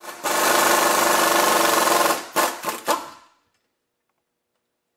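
Pneumatic impact wrench hammering on a bolt that holds the hub to a brake rotor, loosening it. It runs steadily for about two seconds, then gives a few short bursts.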